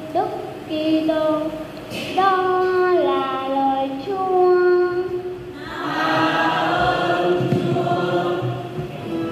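Church choir singing in long held notes at Mass, the sound growing fuller about six seconds in.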